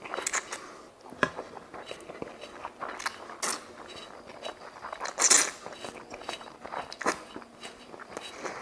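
Close-miked slurping and wet chewing of a large mouthful of mie ayam noodles, in short uneven bursts with a loud slurp about five seconds in.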